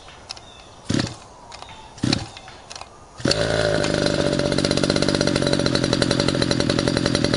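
Small two-stroke gas engine of a Century Predator Gasser RC helicopter being pull-started on choke: two short pulls, then it catches a little over three seconds in and runs steadily with a rapid, even beat.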